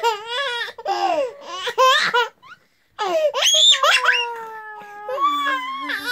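A toddler laughing in bursts, with a short pause about two and a half seconds in, then a high squeal followed by longer drawn-out laughing.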